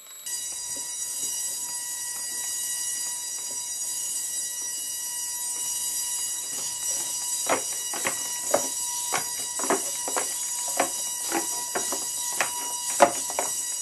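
Hexapod robot's servos whining with a steady high-pitched tone. From about halfway through, its feet tap on the wooden tabletop about twice a second as it walks.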